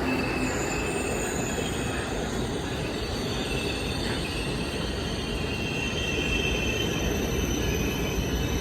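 A train running on the rails with steady rail noise, its steel wheels squealing in several thin, high tones that waver slightly throughout.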